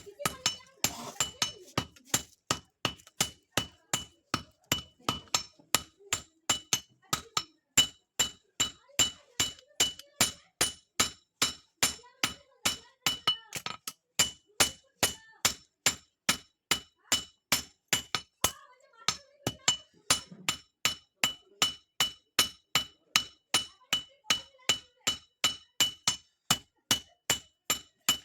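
Blacksmith's hammer beating steel on an anvil while forging a khurpi: a steady run of blows, about two and a half a second, each with a high metallic ring, pausing briefly a few times.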